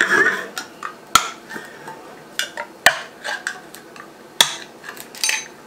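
Ring-pull lids being pulled open on metal cans: a run of metallic clicks, clinks and short scrapes, with three sharper knocks about a second and a half apart.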